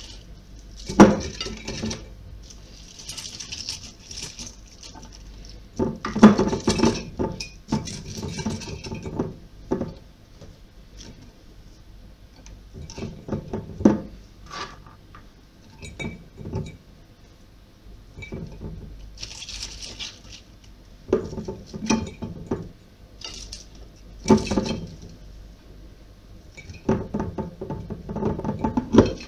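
Raw cabbage pieces and grated carrot being packed by hand into a large glass jar: scattered knocks and clinks against the glass, with short rustles of the cabbage between them.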